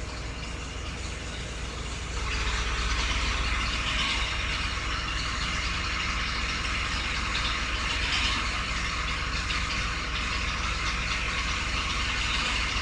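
An engine running steadily at idle between cuts, a little louder and rougher from about two seconds in.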